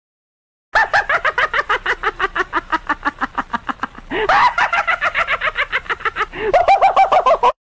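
Rapid laughter, a run of quick ha-ha pulses about seven a second, twice broken by a rising squeal, about halfway through and near the end, then cutting off suddenly.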